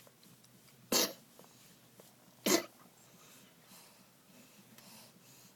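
Two short coughs, about a second and a half apart.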